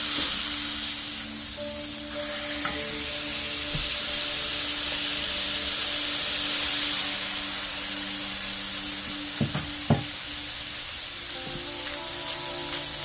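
Smash burger patties sizzling steadily in a hot cast iron braiser. A couple of sharp clicks cut through about ten seconds in.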